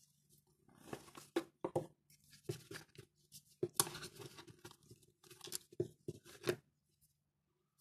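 Small cardboard box being opened by hand: the inner tray slides out of its sleeve with scraping and rustling, broken by several sharp knocks and scrapes, stopping about six and a half seconds in.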